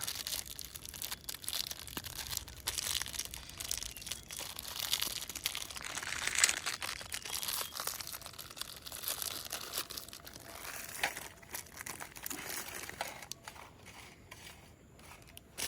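Plastic packaging crinkling and tearing as a biscuit packet is opened and handled, irregular crackling that dies down near the end.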